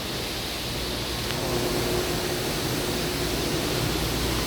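Steady industrial background hum: an even rush of air-handling noise with a low machine drone and a faint steady tone coming in about a second and a half in.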